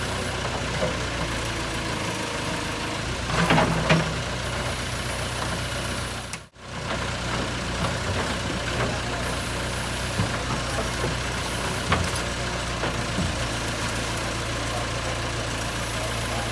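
Diesel engine of a JCB 3CX backhoe loader running steadily at low speed, with a brief louder burst about three and a half seconds in. The sound cuts out suddenly for a moment about halfway through.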